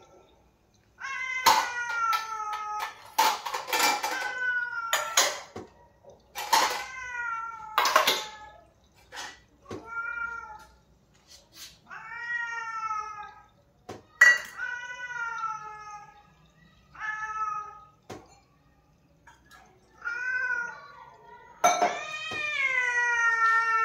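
A cat meowing over and over, about a dozen drawn-out calls, begging for milk; the last call, near the end, is the longest. A few sharp clicks come with some of the early calls.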